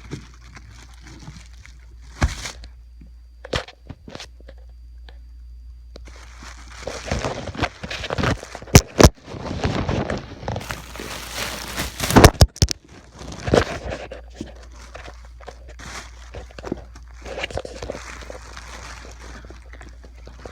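Packaging being handled while a guitar is unboxed: irregular rustling, crinkling and tearing, with scattered sharp knocks, the loudest about nine and twelve seconds in.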